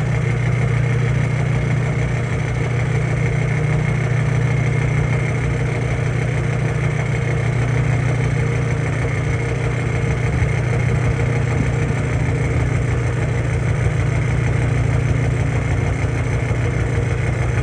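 Kearney & Trecker 3CH horizontal milling machine running steadily through a facing cut, with a loud, even hum from its gear-driven spindle and feeds. There is no gear rattle, as the gearbox has fresh oil.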